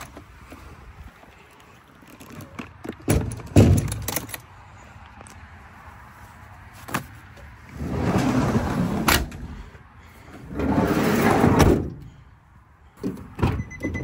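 Gear being stowed in a work van's aluminum side compartment: metal clunks and latch clicks, with a rumbling slide twice, near the middle and again a couple of seconds later, as the pull-out tray and compartment are worked.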